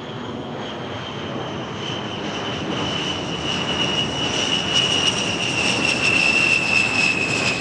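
Sound effect of a jet airliner coming in, its engine noise growing steadily louder with a high whine that slides slowly down in pitch. It cuts off suddenly at the end.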